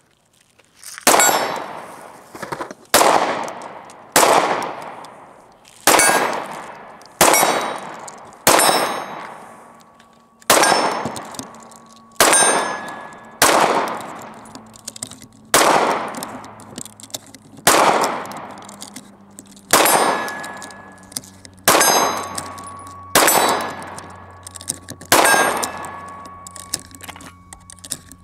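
HK VP9 9mm pistol fired in a slow, steady string of about sixteen shots, one every second and a half or so. Steel targets ring after many of the shots.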